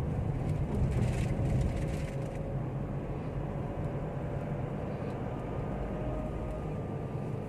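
Steady engine and road noise of a moving car, heard from inside the cabin, with a faint steady whine above it.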